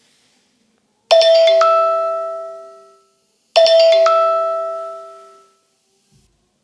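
iPhone ringtone: a bell-like chime of two notes in quick succession, played twice about two and a half seconds apart, each ringing out and fading over about two seconds.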